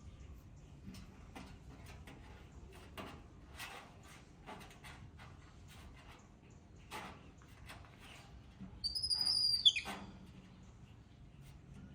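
Faint scattered taps and rustles, then, about three-quarters of the way in, a loud high-pitched animal squeal about a second long that drops sharply in pitch at its end.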